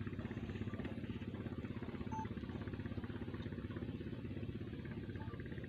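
An engine idling, a steady fast throb that holds even throughout.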